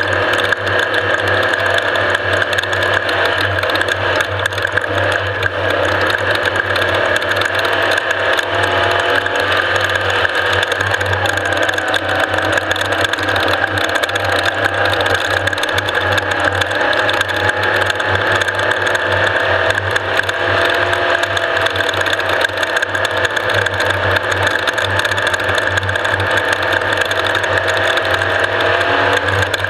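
Off-road race vehicle's engine and drivetrain running steadily, a continuous mechanical drone with a slowly wavering gear whine and fast rattling.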